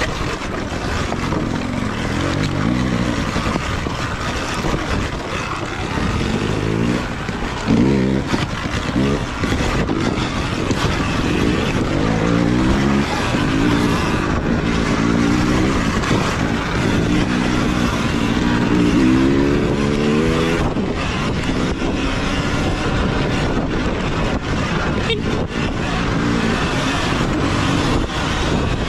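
Sur-Ron Ultra Bee electric dirt bike ridden hard over a rough, rocky trail, heard from on board: a motor whine that rises and falls in pitch with the throttle, over the rush of wind and tyres on dirt and stones, with scattered knocks from the rough ground.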